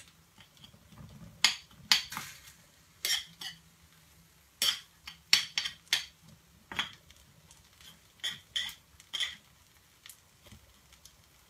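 Knife blade clicking and scraping against a metal künefe plate as it works through the kadayıf at the edge: about a dozen short, sharp strokes at uneven intervals.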